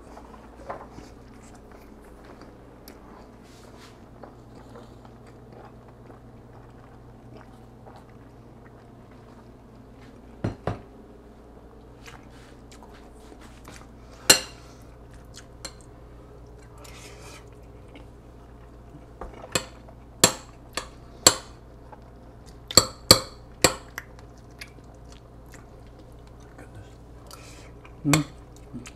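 Metal spoon clinking and scraping against a ceramic bowl of rice and ground turkey while eating: sparse sharp clicks, a pair about ten seconds in, one around fourteen seconds, a quick run of several in the second half, and one more near the end, over a steady low room hum.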